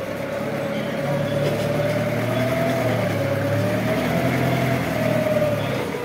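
Linde counterbalance forklift running as it manoeuvres, a steady engine drone with a whine above it that wavers up and down in pitch. It grows louder about a second in and eases off near the end.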